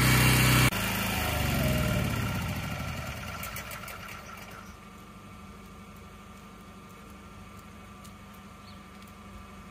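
Pressure washer running, then shut off under a second in, its motor winding down and fading over the next few seconds to a faint steady hum.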